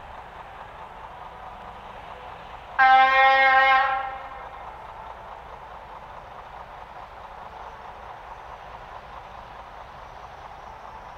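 Diesel locomotive horn sounding one single-tone blast of about a second, roughly three seconds in, over steady background noise.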